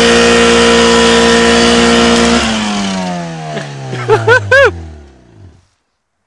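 A car engine held at steady high revs during a burnout, under a broad hiss. About two and a half seconds in the revs fall away, a few quick throttle blips follow around four seconds, and the sound fades and cuts to silence about half a second before the end.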